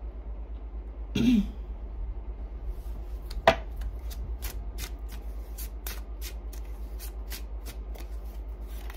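A tarot deck being shuffled by hand, the cards clicking against each other in a steady rhythm of about three strokes a second, with one sharper snap early on in the shuffle.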